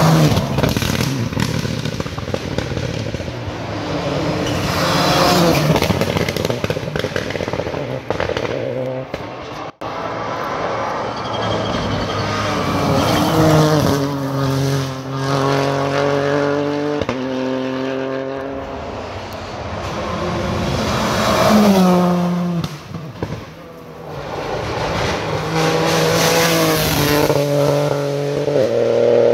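Rally cars passing at full throttle, engines revving hard and shifting up through the gears, with pitch climbing then dropping at each shift. Several cars are heard in turn, switching abruptly twice.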